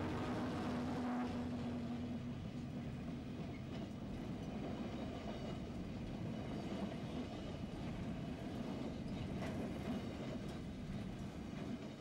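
Diesel-hauled freight train of bulk hopper wagons rolling slowly past at close range: a steady rumble of wheels on rail, with a few sharp clicks as wheels cross rail joints later on.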